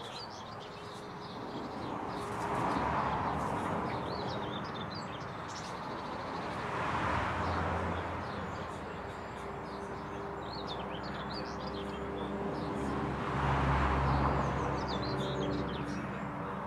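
Small birds chirping and twittering in quick, high notes scattered throughout. Beneath them is a broad rushing noise that swells and fades three times, with a low rumble at the two later swells.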